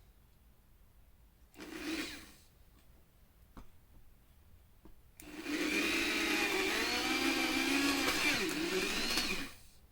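Electric drill boring through the wooden base board of a bar stool cushion: a short burst about two seconds in, then a steady run of about four seconds from about five seconds in, its pitch dipping briefly near the end.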